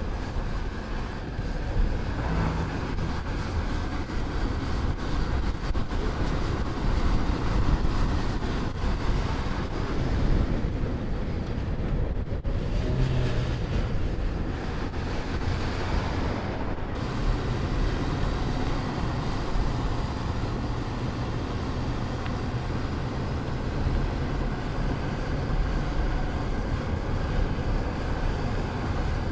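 A car driving along a road: a steady engine note with tyre and wind noise, and the engine pitch shifting a little now and then. The sound changes abruptly twice, about twelve and seventeen seconds in.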